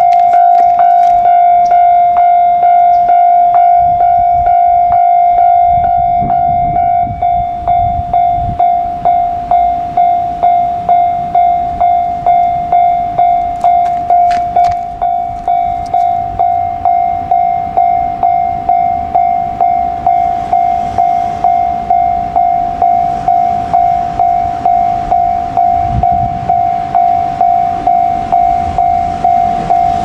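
Japanese railway level-crossing warning bell ringing in a steady, regular rhythm of about two dings a second. A second, higher-pitched ringing sounds alongside it and stops about seven seconds in.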